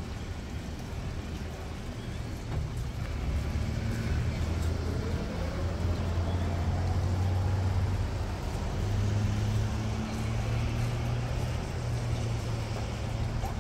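The giant cuckoo clock's band figures play a tune over loudspeakers, with low bass notes that hold and step to a new pitch every second or two. Street traffic runs underneath, and something rises in pitch about five seconds in.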